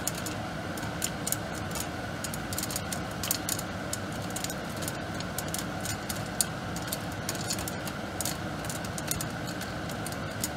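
Popcorn popping in butter in a glass-lidded pot on the stove: many sharp, irregular pops, several a second, over a steady background hiss.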